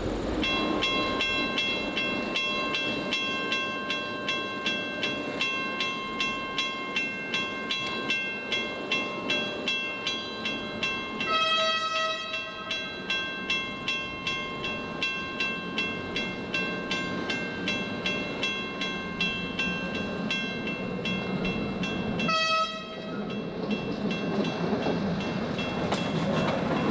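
Level-crossing mechanical bell ringing with steady, rapid strokes, its tone hanging between strikes. A steam locomotive's whistle sounds twice over it: a blast of about a second and a half about eleven seconds in, then a short toot near the twenty-two-second mark. Near the end the rumble of the approaching train grows.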